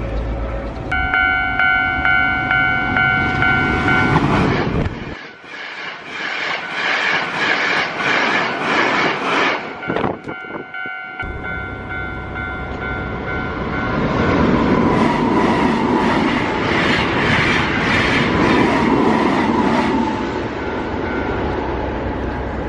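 A horn sounding a steady chord of several tones, then a fast, even clatter, then the horn chord again, followed by a long, slowly falling tone over a steady rumble.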